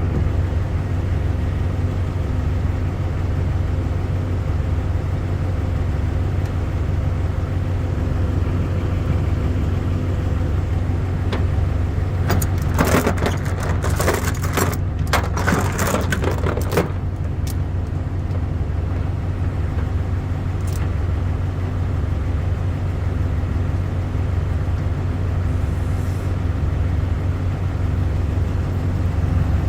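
A heavy engine idling steadily with an even low throb. About halfway through comes a few seconds of metallic rattling and clanking, followed by a couple of single clicks.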